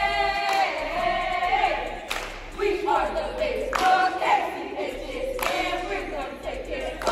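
A song with layered singing voices, held notes sliding from one pitch to the next.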